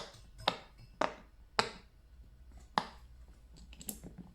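A fidget toy being popped or clicked by hand: six sharp pops, each with a short hollow ring, the first four about half a second apart.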